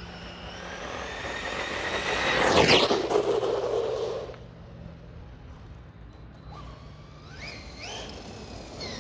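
Maverick Quantum MT Flux brushless RC monster truck on a 3S battery making a speed pass: its high motor whine rises as it approaches, peaks with a rush of tyre and air noise about two and a half seconds in, then drops in pitch and fades. A fainter whine, wavering in pitch, comes back near the end.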